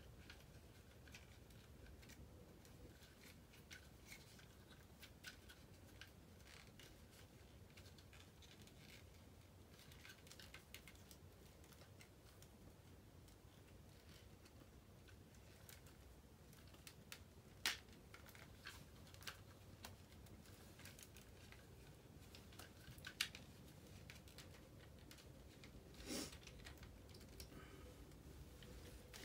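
Faint, scattered clicks and taps of hard plastic as a GI Joe Breaker action figure is worked onto the Ram Cycle toy motorcycle. Two sharper clicks stand out in the second half, and a brief scrape comes near the end.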